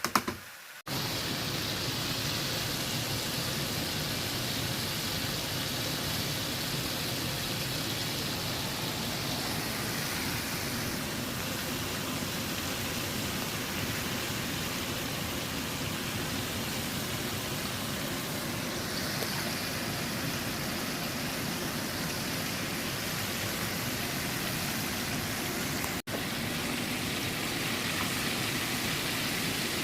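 Breaded chicken pieces deep-frying in hot oil, a steady hissing sizzle. A couple of brief knocks right at the start.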